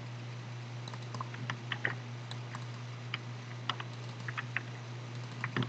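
Computer keyboard being typed on in scattered, irregular keystrokes, with a small flurry near the end, over a steady low hum.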